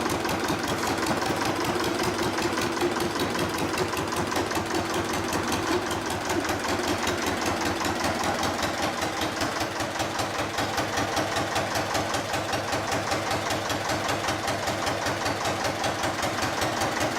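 Armstrong Siddeley AS2 two-cylinder air-cooled diesel engine running steadily, with an even, rapid firing beat and a diesel knock.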